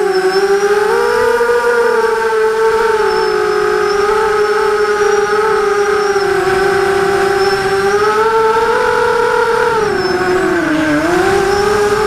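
Vortex FPV quadcopter on a 4S battery, its motors and propellers whining close to the onboard camera while hovering. The pitch wanders with the throttle, drops sharply about ten seconds in and climbs back.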